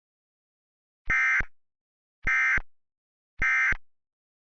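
Emergency Alert System end-of-message signal: three short bursts of SAME digital data tones about a second apart, marking the end of the alert.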